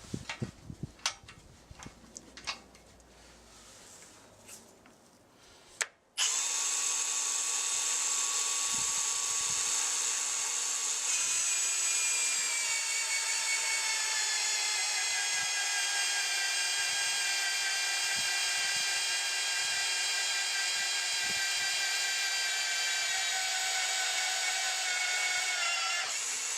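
A few clicks and knocks, then about six seconds in a magnetic drill starts cutting a 1-1/16 inch hole in quarter-inch steel with an annular cutter: a steady whine that sinks slowly in pitch as the cut goes on.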